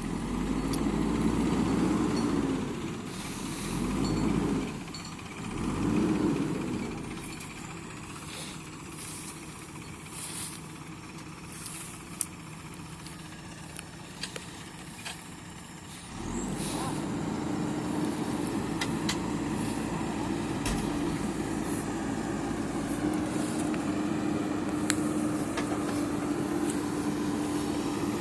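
Diesel engines of a JCB backhoe loader and tractor at work. The engine revs up and down three times in the first few seconds, then drops to a lower run with scattered clanks. About halfway through, a steady engine drone with a constant hum starts up and runs on.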